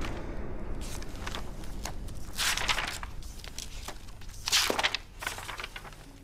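Pages of a hardback book being turned, paper rustling and flapping in a few short bursts, the loudest about two and a half and four and a half seconds in.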